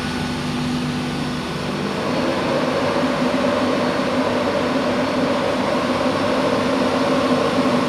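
Steady mechanical hum with a rushing, fan-like noise, growing louder about two seconds in.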